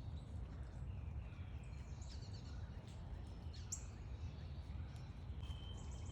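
Small backyard birds chirping in short scattered calls, with a sharp chirp near the middle and a held whistled note near the end, over a steady low rumble of background noise.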